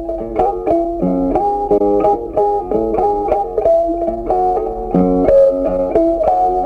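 Background music: a quick, steady run of plucked notes.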